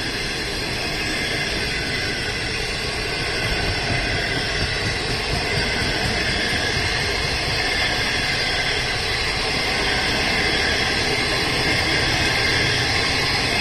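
Green 25G-series passenger coaches of a China Railway train rolling past on the near track, a steady rush of wheel and rail noise.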